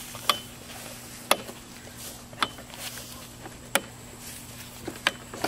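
Five short, sharp clicks about a second apart, over a faint steady low hum.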